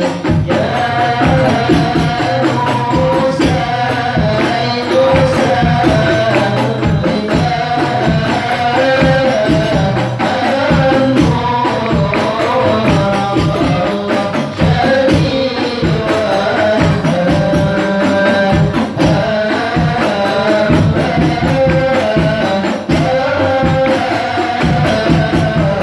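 Islamic devotional song (sholawat) sung into microphones by a hadrah group, with several rebana frame drums beating a steady, busy rhythm under the melody.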